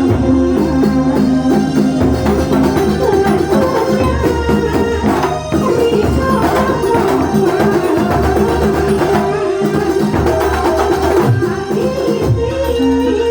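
Kuntulan music played live, traditional Banyuwangi ensemble music driven by hand-beaten drums, with melodic instruments over a steady rhythm.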